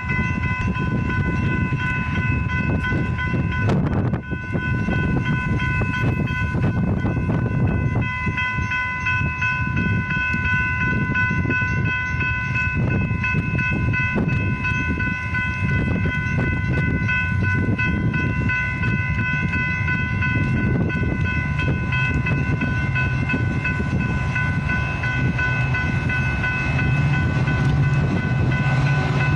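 Metra diesel-hauled commuter train rumbling past, with a steady high-pitched tone held over the rumble.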